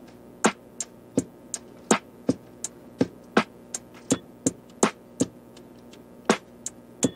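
Background music with a sparse beat of sharp percussive hits, about three a second, over a faint sustained backing; the hits pause for about a second near the end.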